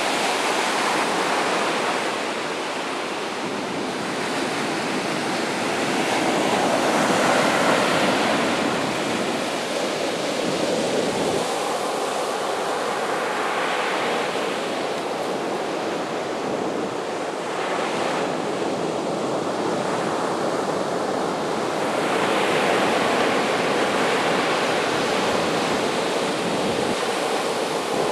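Ocean surf breaking on a sandy beach: a continuous rush of waves that swells and eases every few seconds as breakers crash and wash up the sand.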